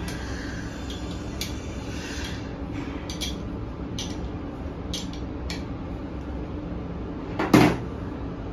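Spanner clinking on the nut of a brass bushing terminal clamp as it is tightened: a few sharp metal ticks about a second apart, over a steady low hum. A louder knock near the end.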